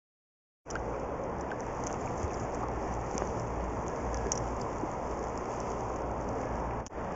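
Dead silence for the first half-second or so, then the steady rushing hiss of river water picked up by a camera held underwater, with scattered faint ticks and clicks.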